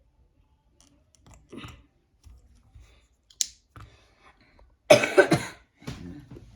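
A person coughing, a short cluster of about three quick coughs roughly five seconds in, the loudest sound here. Before it, light clicks and ticks of small plastic kit parts being handled, with one sharp click in the middle.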